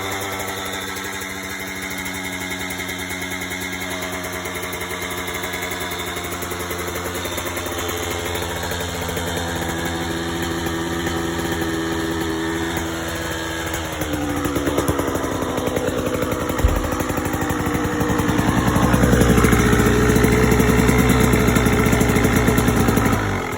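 2021 KTM 85 big wheel two-stroke engine with its stock silencer, idling just after a cold start. The idle shifts in pitch about halfway through, runs louder and higher for several seconds, then drops back near the end.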